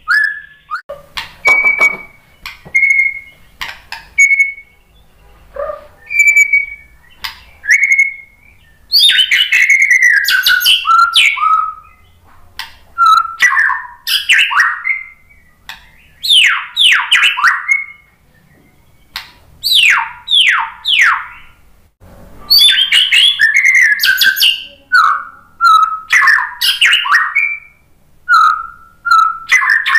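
Male white-rumped shama singing: short clear whistles about once a second, then from about nine seconds in long, varied phrases of rapid downward-sweeping whistles and trills with short pauses between them.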